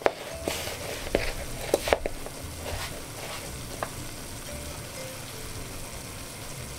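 A wooden spoon stirring cubes of beef coated in flour and paprika in a plastic mixing bowl, with a few sharp clicks and scrapes of the spoon against the bowl in the first two seconds, then quieter mixing.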